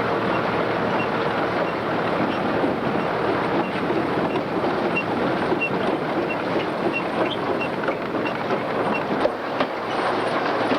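Case IH 885XL tractor and Grimme RowOver potato harvester at work: a steady machinery noise full of continuous clattering and rattling, with a faint high tick repeating about twice a second through the middle.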